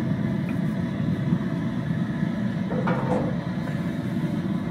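Propane burner under a seafood boiler running steadily, giving an even, low rumble as the broth heats toward a boil.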